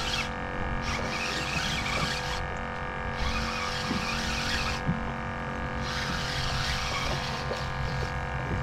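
Fishing reel working under heavy load from a hooked fish, in three hissing bursts of about a second and a half each, over a steady hum.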